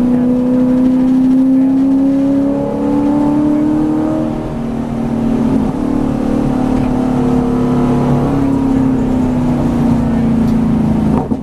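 A V8 Supercar's V8 engine heard from inside the cabin, its note climbing steadily as the car accelerates over the first few seconds, then holding and sinking gradually as the car slows into the next corner.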